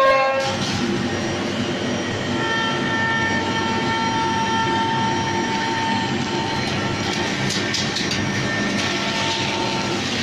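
CNC router spindle cutting solid maple: a steady whine with a couple of held tones over the hiss of the bit chewing through the wood.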